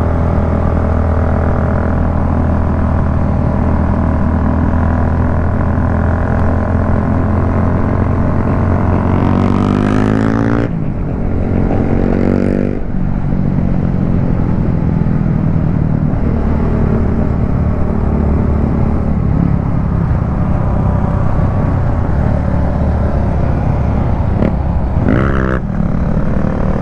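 Motorcycle engine running while riding. The revs climb about ten seconds in and drop off sharply, a second short rise and fall follows a couple of seconds later, and the revs rise once more near the end.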